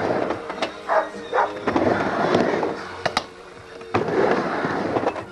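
Skateboard wheels rolling on a vert ramp's panelled surface, a rushing roll that swells and fades with each pass. Several sharp clacks come from the board and trucks striking the ramp and coping.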